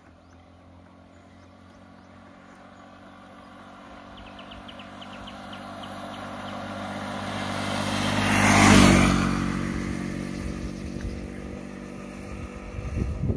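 A motorcycle approaching and passing close by, its engine growing steadily louder to a peak about nine seconds in, then fading as it moves away. Brief low rumbles come near the end.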